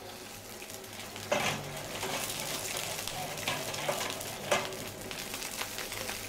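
Shallots and vermouth sizzling in olive oil in a frying pan, the crackle growing louder about a second in. A couple of sharp clicks stand out, one about a second in and one past the middle.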